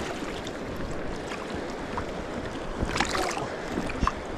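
River water flowing, with a splash about three seconds in and a smaller one near the end.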